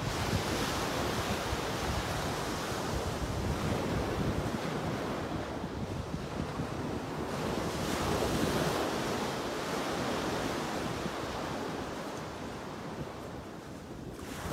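Ocean surf washing in steadily, with wind buffeting the microphone; the wash swells up about halfway through.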